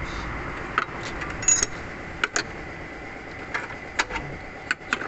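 Hand tools clinking and knocking on metal engine parts in an irregular run of sharp clicks, about ten in all, during work to take off the V-belt and water pump.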